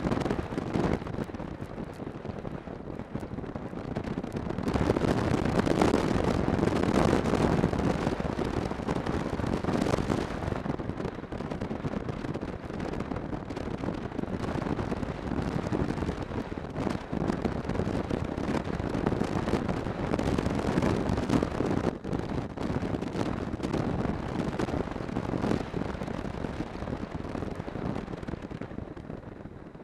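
A snowmobile riding along a snow trail, heard as a dense rushing noise of wind buffeting the microphone over the machine's running. The buffeting swells for a stretch from about five to ten seconds in.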